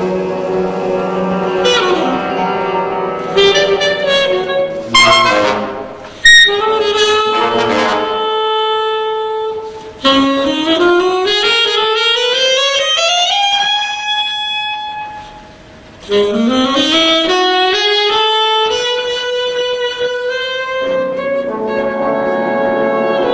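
Alto saxophone solo with a jazz big band: the alto twice sweeps in a long upward glide to a held high note, with the band's sustained chords before and after and a sharp loud accent about six seconds in.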